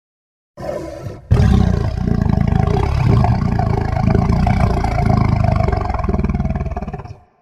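Kaiju monster roar sound effect from the Godzilla films. A short, quieter lead-in breaks off, then one long, loud roar lasts about six seconds and stops.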